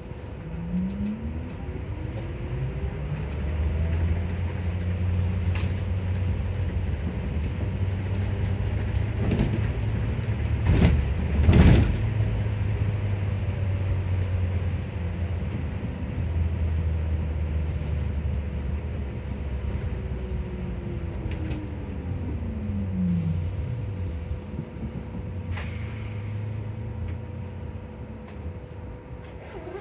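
Electric bus traction motor heard from inside the bus: its whine rises in pitch as the bus pulls away and falls again as it slows about three-quarters of the way through, over a low road rumble and a steady hum. A couple of loud knocks sound near the middle.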